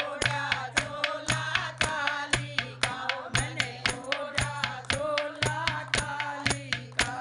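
Group of women singing a Hindi devotional bhajan in unison, with steady rhythmic hand-clapping keeping time, about three claps a second.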